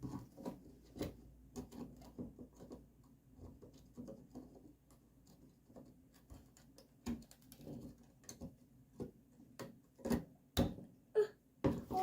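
Hand nail-pulling tool gripping and twisting small nails out of a wooden screen door frame: irregular light clicks and taps, with a few sharper knocks about seven to eleven seconds in.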